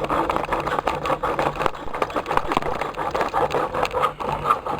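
A hand tool scraping and rasping at a clamped lead pipe in a dense run of quick strokes, trimming back the pipe end.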